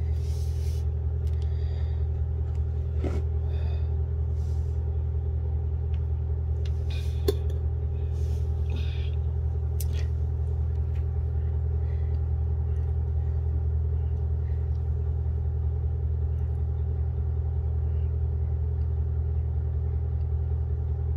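A steady low mechanical hum, unchanging throughout, with a few faint clicks and rustles over it.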